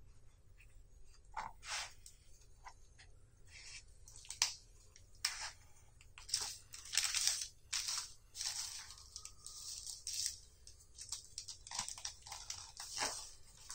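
Irregular rustling and crinkling of a sheet of paper and a soft flatbread being handled, as a shawarma is rolled up and wrapped in paper, with scattered short crunches.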